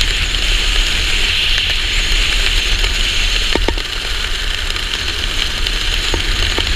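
Steady wind rushing over a helmet-mounted camera under an open parachute canopy, a deep rumble with a hiss on top. A few brief clicks come about midway and again near the end.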